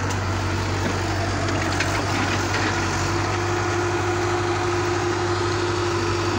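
Diesel engine of a JCB tracked excavator running steadily while its arm and bucket work, with a steady whine joining about two and a half seconds in.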